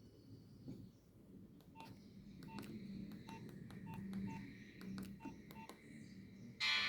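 Nokia 1661 mobile phone key tones: a string of short beeps with clicks, from about two seconds in, as its keys are pressed. Just before the end a ringtone starts loudly.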